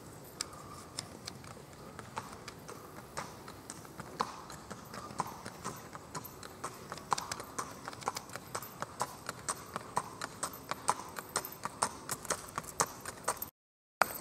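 Horse's hooves clip-clopping on asphalt in a steady rhythm of about three beats a second, faint at first and growing louder as the horse comes closer. The sound cuts out briefly near the end.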